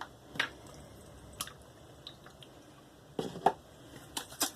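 A few light clicks and taps, scattered and a little busier near the end, from handling a bottle of Pinaud Clubman aftershave and putting it on by hand.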